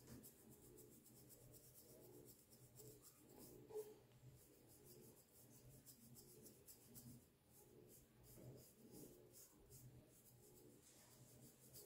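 Faint scratching of a fine-toothed plastic comb raked over a short-haired scalp in repeated short strokes, loosening dandruff flakes.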